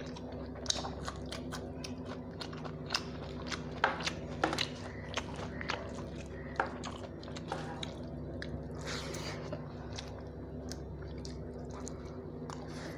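A person eating rice and dal by hand: close, wet chewing with irregular mouth clicks, and fingers mixing rice on a steel plate. A steady low hum runs underneath.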